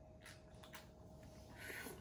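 Near silence: room tone with a faint steady hum, a few faint small clicks and a soft hiss near the end.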